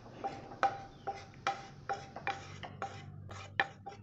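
A spatula scraping and tapping against a non-stick kadai as thick gravy is scraped out into a glass bowl: a quick, irregular series of short scrapes and knocks, each leaving a brief ring from the pan.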